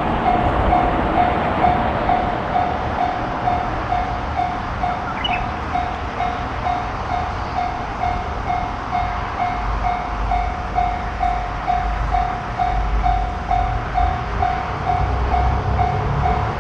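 Japanese railroad crossing warning bell ringing steadily, a clanging tone about twice a second. About halfway through, the low rumble of a train passing over the crossing grows beneath it.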